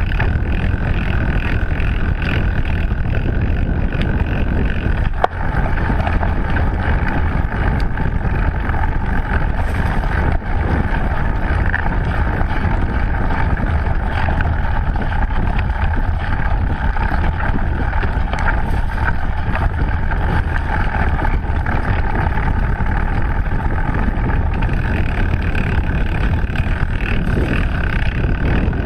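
Steady rumble of a mountain bike's knobby tyres rolling fast over a dirt and leaf-litter forest trail, mixed with wind buffeting the microphone. A sharp knock about five seconds in, and a smaller one about ten seconds in, from the bike hitting bumps.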